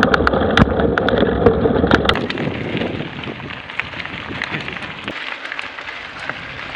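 Mountain bike tyres rolling over a loose gravel track, a rough rushing noise with many sharp clicks. After about two seconds it changes to a quieter, even rush of riding and wind noise on the microphone.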